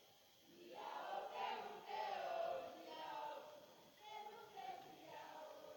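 A group of voices singing or chanting together, fairly faint, coming in about a second in after a brief lull.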